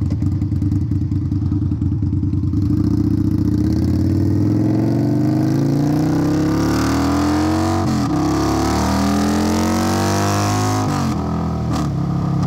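Indian Scout Bobber's V-twin through a Hacker Mayhem aftermarket exhaust, ridden through the gears: steady for the first few seconds, then the revs climb, drop at a shift about eight seconds in, climb again and drop at another shift near the end.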